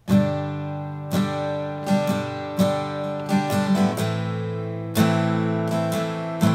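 Steel-string dreadnought acoustic guitar strummed in a relaxed rhythmic pattern, accented strokes between lighter ones with the chords ringing on, the chord changing about four seconds in.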